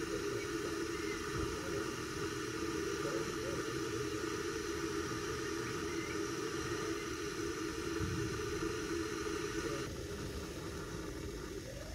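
Gas canister camping stove burner running with a steady hiss under a pot of water heating for coffee. The hiss stops shortly before the end.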